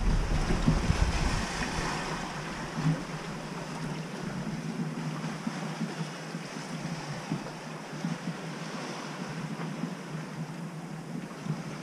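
Sea noise aboard a sailing yacht under way: a steady rushing of waves and water, with wind buffeting the microphone that dies away over the first second or two.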